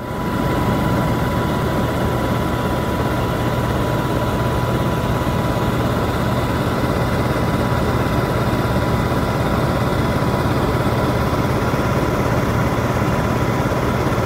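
Steady engine and airflow drone inside an aircraft cabin, with a low hum and a constant high whine.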